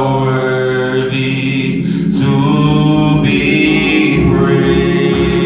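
Worship singing over sustained church organ chords, the voices holding long notes. Deeper bass notes from the organ come in about four seconds in.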